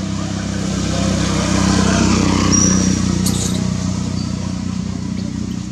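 A motor vehicle engine running, its hum swelling over a couple of seconds and fading again as it passes, with a brief high click about three seconds in.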